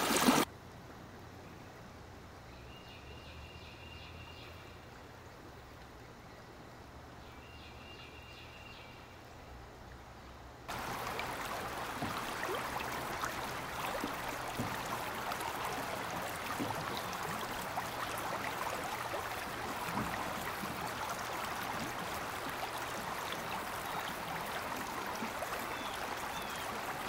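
Shallow river water running and rippling over a sandbar, a steady rush of flowing water. For about the first ten seconds it is much fainter, with two faint high chirps, and then the water is louder from there on.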